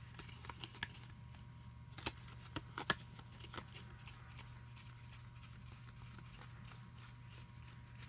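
Trading cards being handled and flipped through while being counted: a few light clicks and flicks in the first few seconds, the sharpest about two and three seconds in, then only a low steady hum.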